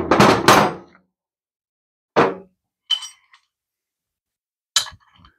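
Hammer blows on a socket held against a bent Briggs & Stratton overhead valve, hammering to straighten the hardened valve, which snaps in two. Two heavy strikes in the first second, a single knock about two seconds in, a short metallic clink around three seconds, and a sharp tap near the end.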